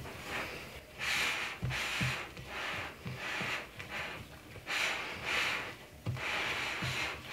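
A spatula scraping and folding stiff flour dough around a glass bowl: repeated rough rubbing strokes, about one or two a second, with soft knocks where it bumps the bowl.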